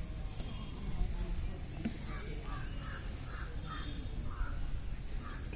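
Crows cawing, a run of short caws about two a second starting about two seconds in, over a low rumble.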